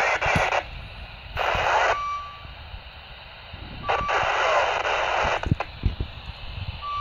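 Baofeng UV-5R handheld radio's speaker giving three bursts of FM static hiss as transmissions key up and drop on the 2-metre repeater. Short single-pitch beeps fall between the bursts, and a few low knocks come near the end.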